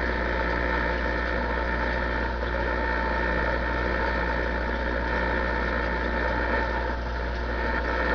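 DAK Mark 9 CB radio's speaker giving out steady static and hum with no station coming in.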